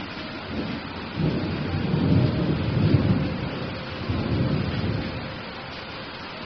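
Steady rain hiss with a low roll of thunder rising about half a second in, loudest around two to three seconds, swelling again briefly and dying away near the end.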